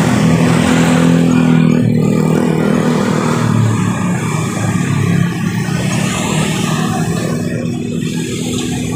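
Diesel engine of an Isuzu Elf dump truck running steadily while its hydraulic hoist holds the bed up and the gravel load slides out, with motorbikes passing close by.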